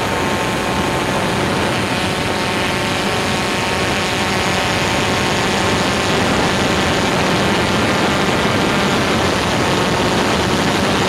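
Drone's electric motors and propellers running steadily in flight: a loud, dense whirring hum made of many steady tones, a little louder from about six seconds in.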